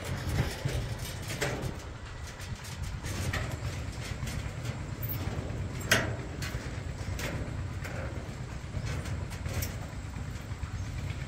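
Footsteps knocking irregularly on the planks of a boardwalk over water, above a steady low rumble; one sharper knock about six seconds in.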